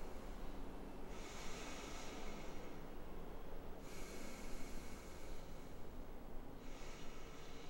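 Slow, regular breathing close to the microphone: a soft hiss that swells and fades every two to three seconds, over a steady low hum.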